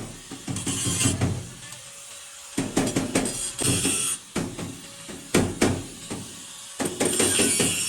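Irregular knocks and clatter of hand tools striking and handling metal during three-wheeler repair work, with quieter stretches in between.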